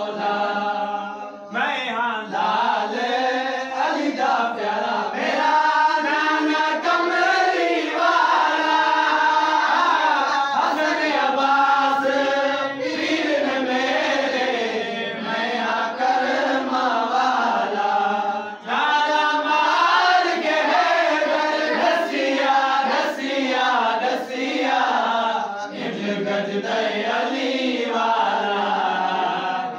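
Male voices chanting a qasida, a devotional Islamic poem, unaccompanied, in a continuous sung recitation with long wavering held notes.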